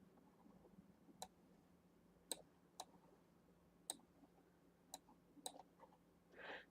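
Faint, irregular clicks of a computer mouse, about six spread over several seconds, against near silence.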